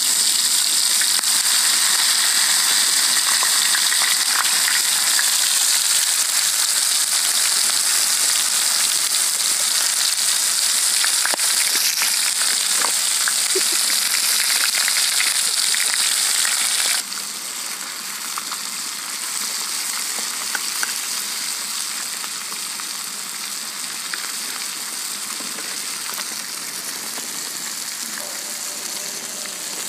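Masala-coated crabs frying in hot oil on an iron tawa: a steady sizzle that drops suddenly to a quieter sizzle a little past halfway.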